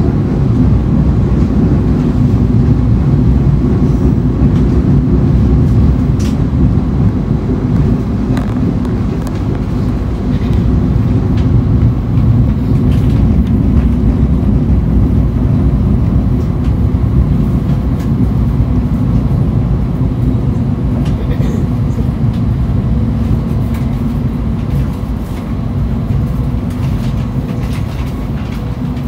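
Mutiara Selatan passenger train running, heard from inside the carriage: a steady low rumble of the train in motion with a few faint clicks.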